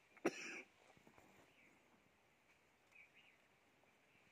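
Near silence of open countryside, with one short sharp click about a quarter second in and faint bird chirps.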